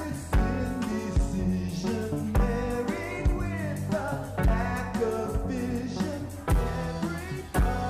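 A live rock band playing a song: electric guitars, bass, drum kit and keyboard over a steady beat, with a voice singing.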